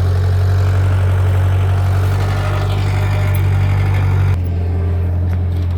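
Bobcat skid steer loader's engine running steadily with a deep hum; about four seconds in the sound turns abruptly quieter and duller.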